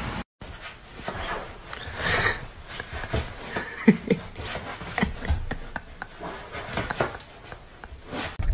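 A cat scrabbling and rubbing against sofa upholstery, with irregular soft knocks and clicks. A couple of short vocal sounds come about four seconds in.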